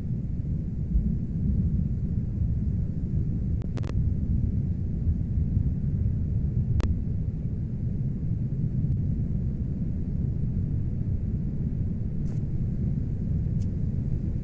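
A steady low rumble during a tornado chase, with a few faint, sharp clicks scattered through it.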